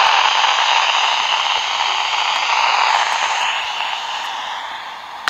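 Amateur radio transceiver giving out FM receiver hiss with the squelch open, no signal heard, slowly easing in level. A short click right at the end.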